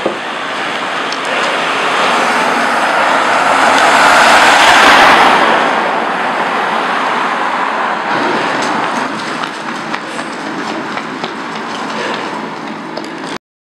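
Road traffic noise: a passing vehicle's hiss swells to its loudest about four to five seconds in and fades back to a steady wash, with a few faint ticks. The sound cuts off suddenly near the end.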